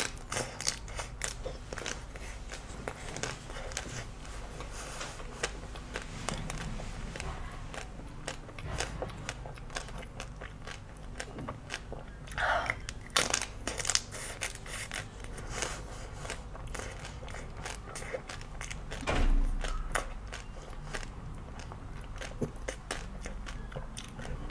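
Close-up eating sounds of chocolate-coated ice cream bars being bitten and chewed: the chocolate shell cracks into many quick, crisp crackles and crunches, with wet mouth sounds. A louder dull thump comes about three quarters of the way through.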